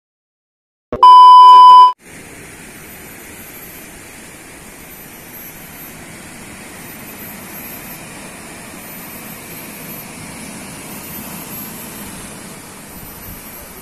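A loud one-second beep at a single steady pitch, then a steady rushing noise of sea surf breaking on a rocky shore.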